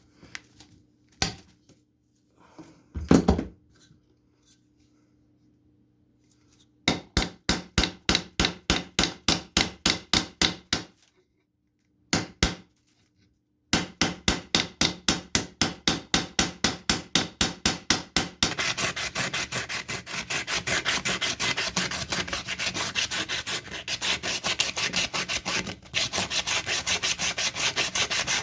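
Hand-driven abrasive rubbing on a knife, in rhythmic back-and-forth strokes about three to four a second, after a few knocks at the start. The strokes come in two runs with a brief pause between them, then turn faster and continuous through the second half.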